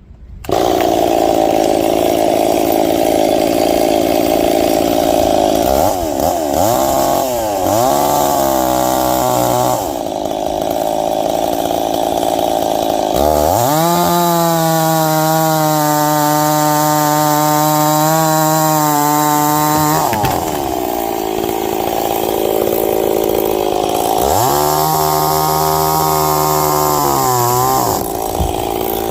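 Ported Stihl 026 two-stroke chainsaw at full throttle, starting abruptly about half a second in and cutting ash wood. Its revs sag and turn rough while the chain is in the cut, then climb back to a steady high pitch when the chain runs free, twice.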